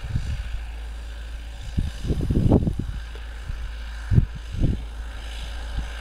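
Ford 7610 tractor's four-cylinder diesel engine running steadily under load while pulling a three-furrow plough. Irregular low buffeting gusts come about two seconds in and twice more later.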